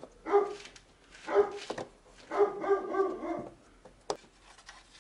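An animal's short yelping calls, four bursts in about three and a half seconds, followed by a single sharp click about four seconds in.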